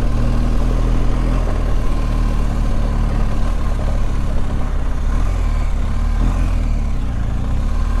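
BMW R 1250 GS boxer-twin engine running steadily at low road speed while riding over a cobbled paving-block road, with the low rumble of the ride.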